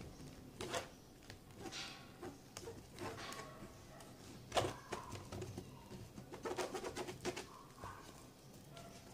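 A spoon stirring and scraping a foamy slime mix of glue and shaving foam in a disposable plate: faint, irregular squelches and scrapes, with a quick run of them about six and a half to seven seconds in.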